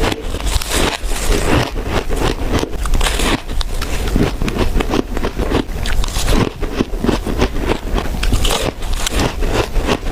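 Close-miked chewing of soft powdery freezer frost and shaved ice: a dense run of crisp crunches and crackles, one after another.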